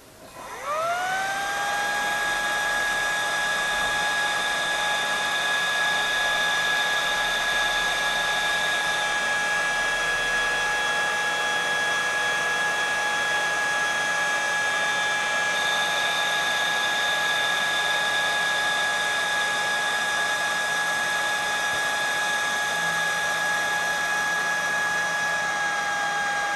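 Electric motor driven by a Sumitomo inverter spinning up as the drive ramps its speed, then running steadily with a high whine over a fan-like hiss.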